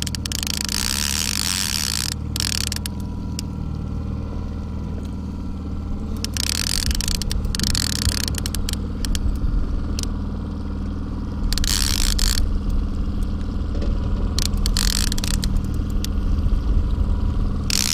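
Boat's outboard motor running steadily at trolling speed, a low even hum, with a few short bursts of hiss and scattered light clicks over it.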